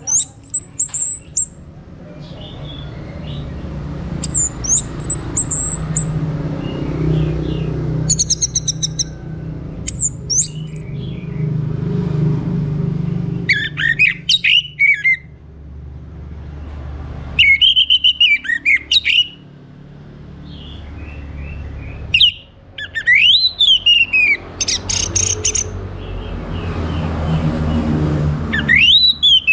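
Orange-headed thrush singing: short, loud phrases of sweeping whistled notes mixed with fast rattling trills, coming every few seconds with pauses between, over a low background rumble that swells and fades.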